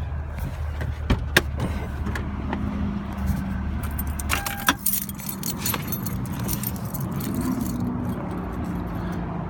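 Toyota car engine idling with a steady low hum, switched off with the ignition key about four and a half seconds in, with a brief beep at the shut-off. Keys jingle and click throughout.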